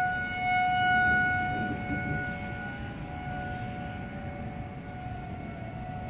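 Outdoor civil-defense tornado warning siren holding a steady wailing tone, loudest in the first second or two, then fading somewhat. A low rumbling noise runs underneath.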